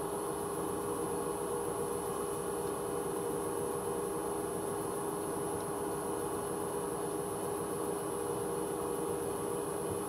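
Hoover H-Wash 300 Plus washing machine spinning its empty drum at 600 rpm: a steady, even motor-and-drum whine, a little high-pitched, with the drain pump off.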